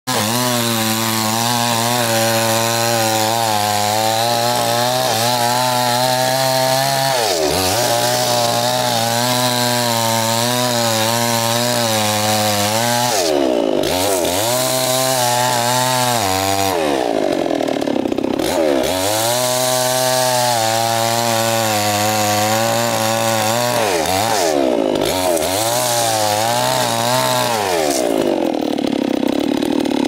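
Two-stroke Stihl chainsaw cutting through a coconut palm trunk at high throttle. Its pitch dips and climbs back several times as the throttle is eased and reopened, then drops to a lower idle near the end.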